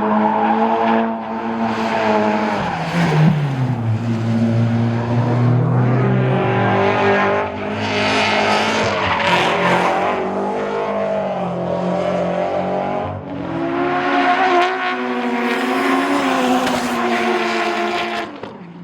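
Drift cars on track, engines revving hard with pitch rising and falling again and again, and tyres squealing as the cars slide past.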